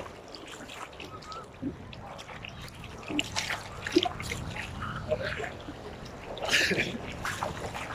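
Sea water splashing and lapping close to a phone's microphone as a swimmer moves through small waves, in irregular short splashes with one louder splash near the end.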